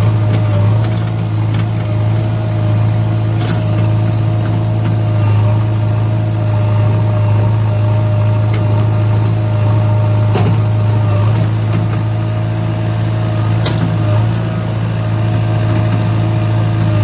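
JCB 3DX backhoe loader's diesel engine running at a steady speed, with a thin steady whine above the engine note. Two sharp knocks cut through it, about ten seconds in and again near fourteen seconds.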